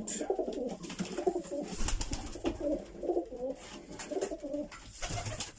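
Birmingham Roller pigeons cooing over and over, several low coos overlapping, with a few faint clicks among them.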